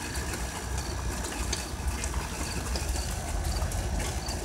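Steady low outdoor rumble with a hiss just after a rainstorm has stopped, with a few faint ticks.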